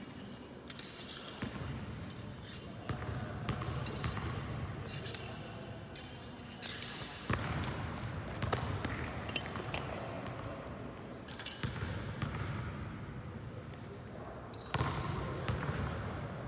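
Smallsword fencing with footwork thudding on a hard floor and sharp, irregular clicks of blades and feet throughout.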